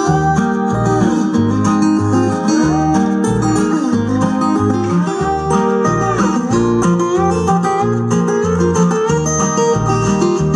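Music played back for a sound test through two-way bookshelf speakers driven by a parallel LM1875 gainclone amplifier: an acoustic guitar song over a steady, regular bass beat.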